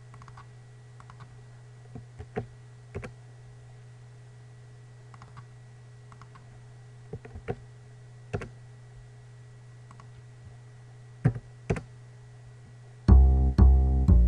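Computer keyboard keystrokes, a few scattered taps at a time over a steady low hum. Near the end, loud music starts.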